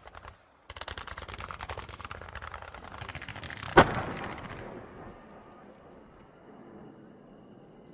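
Aerial fireworks crackling: a rapid run of many small sharp reports, several a second, with one loud single bang a little under four seconds in. The crackle dies away after about five seconds, leaving insects chirping in short repeated pulses.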